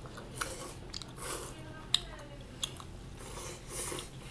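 Close-up eating sounds: chewing and mouth noises, with a few sharp clicks of a metal fork against a ceramic plate.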